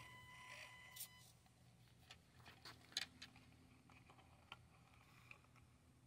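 Near silence, with a faint steady hum and a few soft, scattered clicks.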